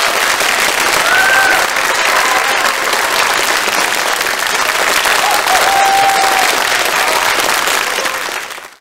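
Audience applauding after a stage performance, with a few short calls from the crowd rising above the clapping; the applause fades out near the end.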